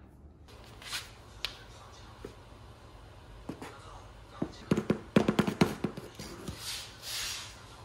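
Shaker can of powdered cleanser being shaken and tapped to sprinkle powder along a baseboard: a quick run of sharp knocks from about four and a half to six and a half seconds in, then a short hiss.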